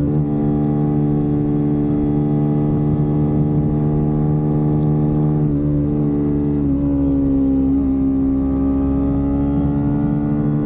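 Kawasaki Ninja 300's parallel-twin engine running steadily at cruising revs while riding. A little past halfway the revs dip and settle slightly lower, once or twice.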